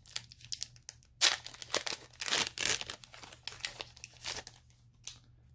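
Foil wrapper of a Pokémon Sun & Moon booster pack crinkling and being torn open by hand: a run of sharp crackles, densest in the middle.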